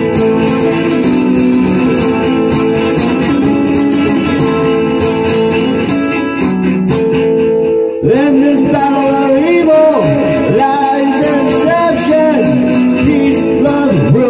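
Guitar music with sustained chords. About eight seconds in the sound changes suddenly, and gliding, bending melody lines come in over it.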